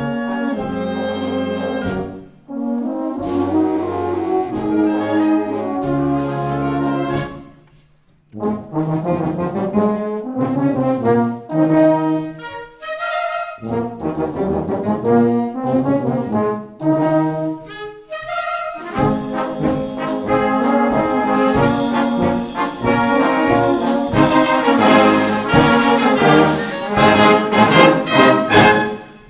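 A brass-heavy wind band playing live, with a couple of short breaks in the first third and the full band growing louder and fuller from about two-thirds of the way in.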